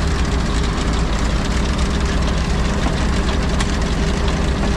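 Heavy diesel engines running steadily: a Claas Jaguar forage harvester with a Kemper corn head, and the Autocar dump truck idling alongside it.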